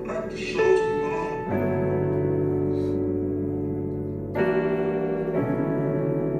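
Background music: sustained electric piano or keyboard chords, changing chord about every few seconds.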